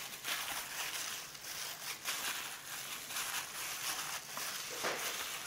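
A plastic-gloved hand kneading marinated beef slices in a stainless steel bowl: irregular wet squishing of the meat and crinkling of the plastic glove.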